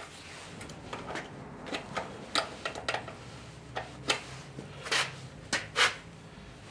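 Irregular metallic clinks and knocks of hand tools and engine parts being handled, a dozen or so sharp taps, the loudest two near the end.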